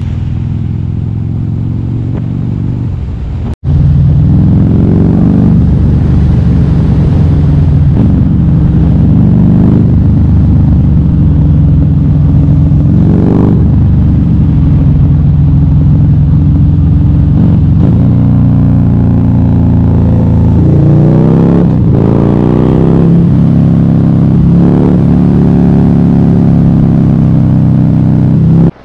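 Motorcycle engine running under way, recorded on the moving bike with wind noise over it. Its pitch rises and falls several times as it accelerates and eases off through the bends. There is a brief break a few seconds in.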